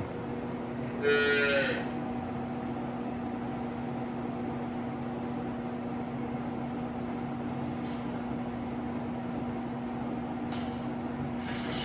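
A calf calls once, a short high moo with a slightly falling pitch, about a second in, over the steady hum of the calf barn's 24-inch ventilation fan blowing air down the duct. A short noise starts near the end.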